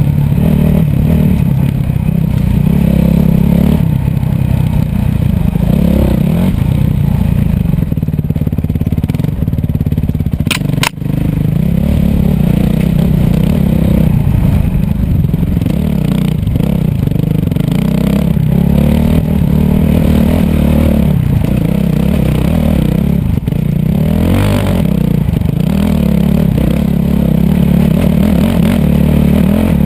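Dirt bike engine heard close from a camera on the rider, running hard with the revs rising and falling as it races along a rough trail, with clattering and scraping from the bumpy ground.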